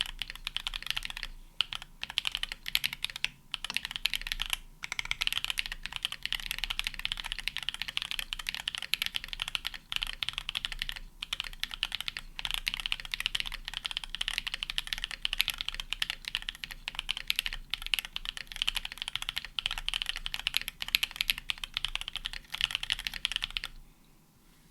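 Custom 60% mechanical keyboard typed on quickly and continuously, a fast stream of key clacks with a few brief pauses early on. The keyboard has a DZ60 PCB, brass plate, lubed Holy Panda tactile switches with 65 g springs, PBT keycaps and foam dampening. The typing stops about a second before the end.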